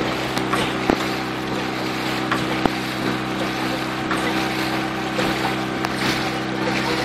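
Outboard motor of a coaching launch running steadily, with a constant rush of water and wind noise.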